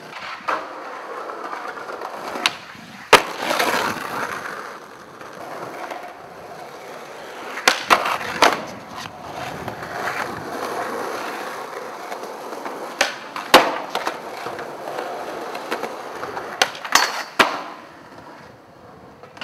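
Skateboard wheels rolling over concrete, broken by a series of sharp clacks of the board striking the ground, the loudest about three seconds in.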